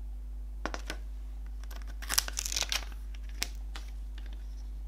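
A page of a glossy CD lyric booklet being turned by hand: a few light ticks, then a crisp paper rustle about two seconds in, and one more tick a little later, over a steady low hum.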